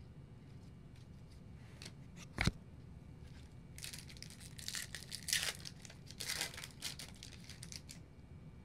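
A single sharp tap, then a trading card pack's wrapper being torn open and crinkled for about four seconds.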